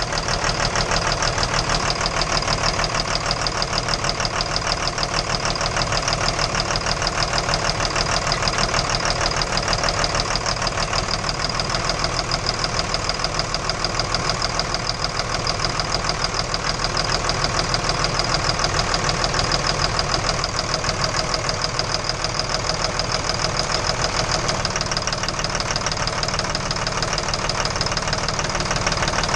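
Engine idling steadily with a fast, regular knock running through it.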